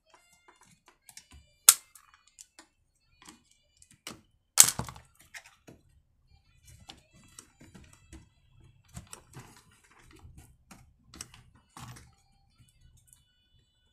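Irregular small clicks, taps and plastic rattles of hands dismantling a chainsaw's carburetor area with a screwdriver, working the air filter adapter loose, with two sharper clacks about two and five seconds in.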